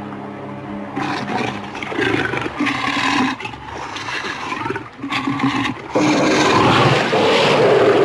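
A big cat growling and roaring in bursts from about a second in, turning louder and continuous from about six seconds in.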